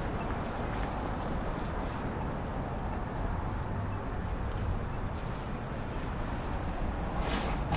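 City avenue traffic: a steady low rumble of cars and buses passing, with a brief hiss near the end.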